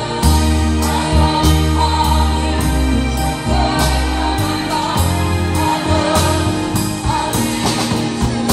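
Church choir singing a gospel song with band accompaniment: sustained bass notes under the voices and a steady beat of sharp percussion hits.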